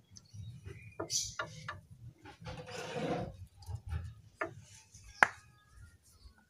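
Light clicks and knocks of a motorcycle's front brake caliper and its mounting bolts being handled and fitted against the fork leg, with a short scraping rub near the middle and the sharpest click about five seconds in.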